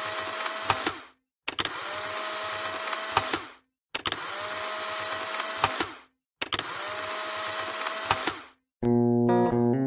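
Polaroid instant camera firing: a click, then its small motor whirs for about two seconds as it pushes the print out. This repeats four times with short gaps between, and guitar music starts near the end.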